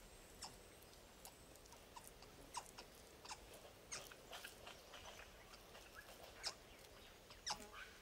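Faint forest ambience: scattered soft clicks and crackles, with a few short chirps, the loudest a couple of chirps near the end.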